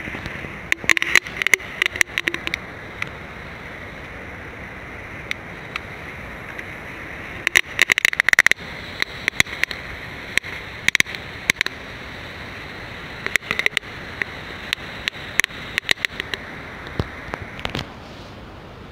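Crackling fireworks (Nico Knatterblitze) going off inside a chips can: clusters of rapid sharp crackles, loudest around eight seconds in, then scattered pops until near the end.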